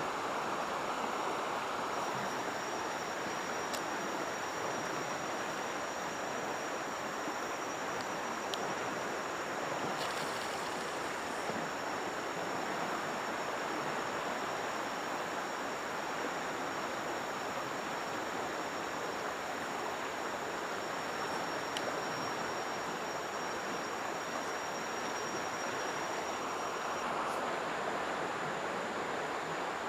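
River water running steadily, an even rushing noise. A thin, high, steady whine sits above it and stops near the end.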